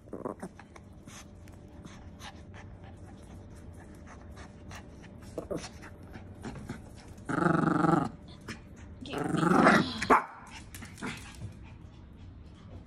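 A small dog growling in play, with two longer, louder growls about halfway through, over light clicking throughout.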